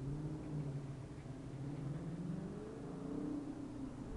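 Dodge Challenger R/T's 5.7-litre Hemi V8 through a Flowmaster Super 44 exhaust, accelerating hard as it approaches from far down the road, its engine note rising steadily in pitch.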